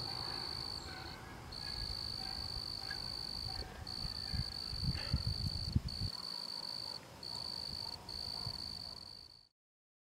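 High-pitched animal trill in long stretches broken by short pauses, over a low rumble with a few soft thumps. The audio fades out near the end.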